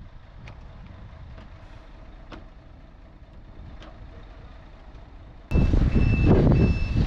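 Low yard rumble with a few faint clicks. About five and a half seconds in, a loud heavy engine rumble starts suddenly, with a vehicle's reversing alarm beeping about twice a second.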